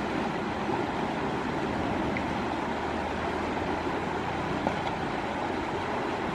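Steady rushing of flowing river water, with a faint low hum underneath and a single light click about two-thirds in.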